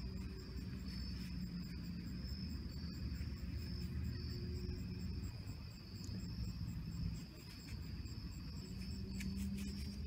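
Crickets trilling steadily at a high pitch, with a low rumble underneath and a few faint clicks near the end.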